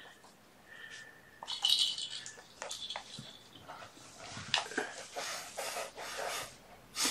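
Kittens playing: scattered short scratchy rustles, light clicks and taps of small paws and claws on surfaces and toys. The first second is quiet, and a brighter rustle comes about a second and a half in.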